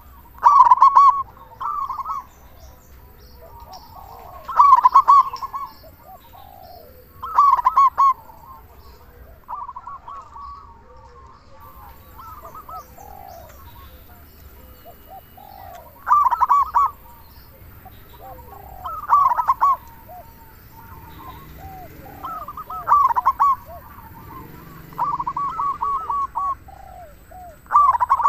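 Zebra dove (perkutut) singing its loud cooing song in short, rapid-noted phrases that repeat every two to three seconds, with fainter calls between them.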